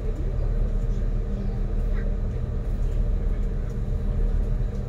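River boat's engines running at cruising speed: a steady low drone with an even hum.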